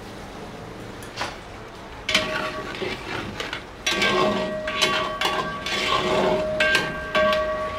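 A long-handled metal spoon scraping and clanking against a steel kadai as it stirs thick gravy, starting about two seconds in. The pan rings after each stroke.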